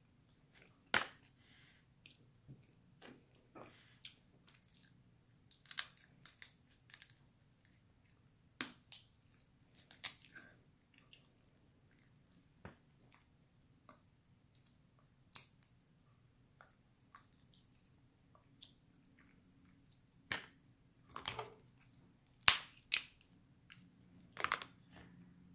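Crab-leg shells cracked and snapped apart by hand: scattered sharp cracks and clicks, the loudest cluster near the end, with quieter picking and chewing sounds between them.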